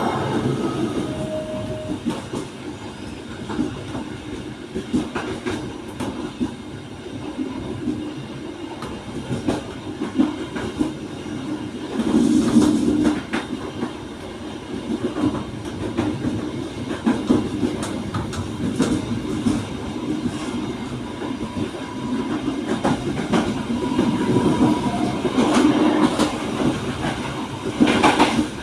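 Passenger train running along the track: a steady rumble with the clickety-clack of wheels over rail joints, swelling louder about twelve seconds in and again near the end.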